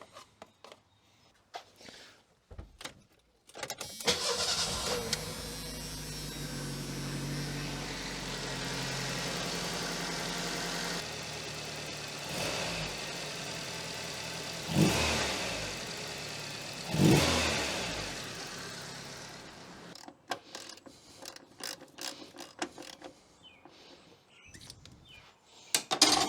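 Merkur XR4Ti's turbocharged 2.3-litre four-cylinder starts a few seconds in and runs at idle, with the disconnected vacuum reservoir line just plugged back in. It is blipped twice, then shut off, leaving only a few light clicks.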